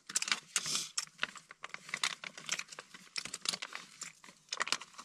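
Thin plastic food bag crinkling and crackling as it is handled in gloved hands, in irregular bursts of sharp crackles.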